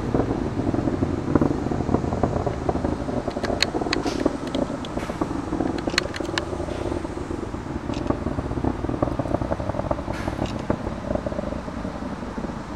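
Distant rumble of a climbing Falcon 9's first stage, nine Merlin engines, with scattered sharp cracks. It fades slowly.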